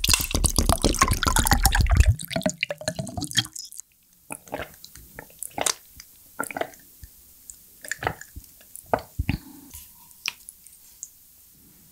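Close-miked wet eating sounds: for the first few seconds a dense, loud run of squishing and crackling as saucy food is worked in the mouth, then separate wet mouth clicks and smacks of chewing.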